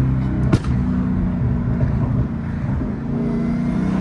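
Dodge Hellcat's supercharged V8 running steadily at low speed, with one sharp crack about half a second in.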